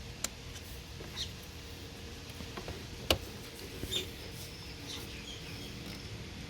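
Hands working on parts in an engine bay: a few scattered clicks and short high squeaks, the sharpest click about three seconds in, over a steady low hum.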